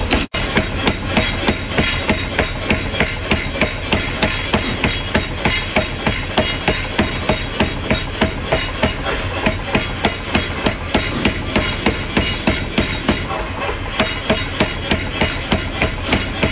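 Mechanical power hammer pounding a red-hot steel bar on its anvil die, a fast even run of heavy metal-on-metal blows about three a second. The sound cuts out very briefly just after the start.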